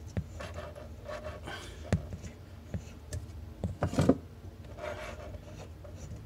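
Hand unscrewing a loosened compression nut from a chrome shut-off valve under a sink: light metallic scraping and rubbing, with a few small knocks, loudest about four seconds in.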